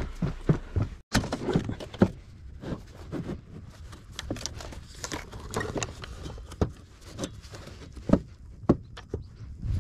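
Scattered knocks, taps and rustling of hand work, pieces of material being handled and fitted into place in a small enclosed space. The sound cuts out completely for an instant about a second in.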